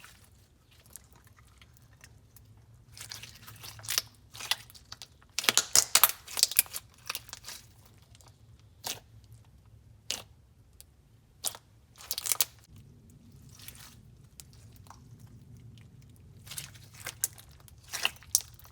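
Fishbowl slime with fake sprinkles being handled, giving off crunchy crackling pops in several bursts with short pauses between, the busiest about six seconds in.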